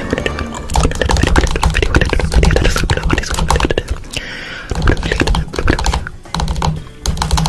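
A rapid clatter of clicks and taps, like fast typing, with a brief swirling whoosh about four seconds in.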